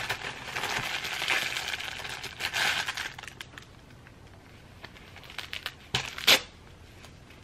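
Thin clear plastic packaging crinkling and rustling as a fabric headband is pulled out of it for about the first three seconds, then faint handling noises and one short sharp crinkle about six seconds in.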